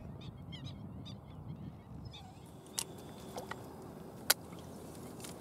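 Wild ducks calling: a quick run of short, high notes in the first two seconds. Two sharp clicks follow, the louder one about four seconds in.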